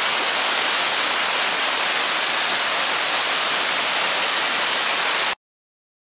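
Tall waterfall plunging into its pool, a steady hissing rush of falling water that cuts off suddenly about five seconds in.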